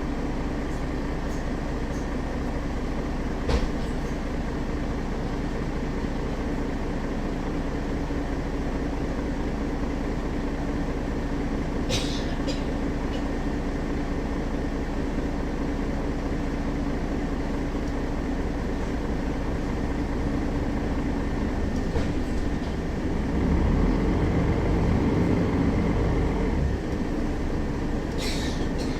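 Mercedes-Benz Citaro facelift city bus heard from on board: its diesel engine runs with a steady drone. It gets louder for about three seconds near the end, as if pulling under load. A few short rattles or knocks come from the body.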